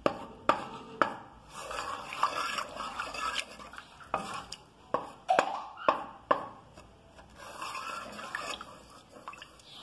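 Wooden spoon stirring milk with melting margarine in a metal saucepan, scraping and swishing around the pan, with about six sharp knocks of the spoon against the pan's side.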